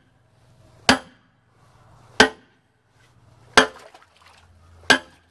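A 20-pound sledgehammer strikes the head of a 6-foot steel bar, four sharp metallic clanks about 1.3 seconds apart. Each blow drives the bar's tip against the 3-inch reinforced concrete wall of a septic tank to break through it.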